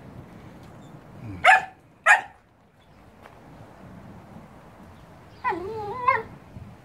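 A dog barks twice, sharp and quick, then gives a wavering whine-like call lasting under a second.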